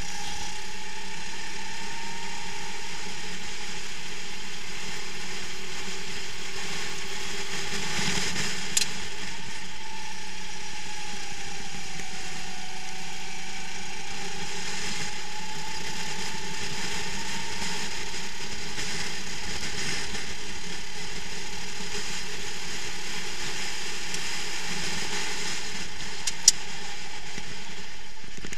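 Onboard sound of a racing rental go-kart's engine running under load, heard as a steady rattling noise with a hum whose pitch rises and falls gently with speed. Two sharp clicks, about nine seconds in and near the end.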